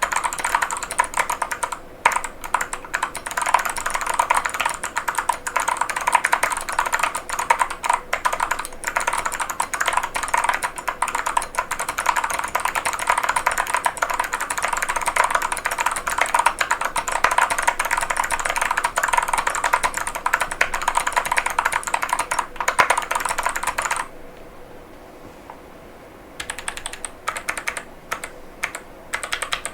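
Fast typing on an Epomaker Tide75 mechanical keyboard with Kailh White Owl V2 switches and full-metal keycaps: a dense, steady stream of keystrokes that pauses for about two seconds near the end, then resumes in shorter runs.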